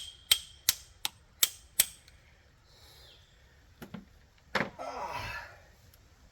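A hand ratchet wrench clicking in slow, evenly spaced metallic clicks, about three a second, as it is worked on a strut's top mounting nut. A louder scraping clatter of metal comes about four and a half seconds in.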